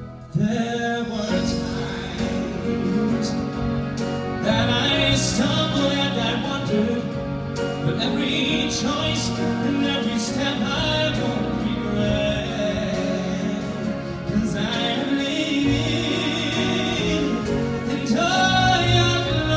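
Live ballad: a male singer holding long notes over grand piano and a string quartet with cello, after a brief dip at the very start.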